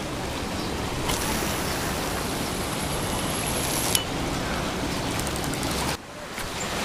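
Steady wash of small waves breaking on a lava-rock shore, with wind rushing over the microphone. A faint high whine lasts a few seconds and ends in a small click about four seconds in, and the noise drops off abruptly near the end.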